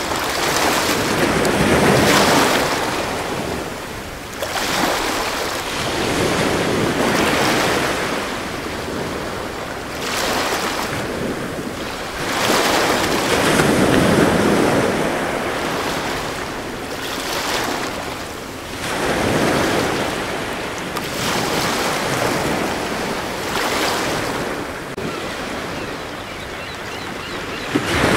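Ocean surf: waves washing in and drawing back, swelling and fading every few seconds.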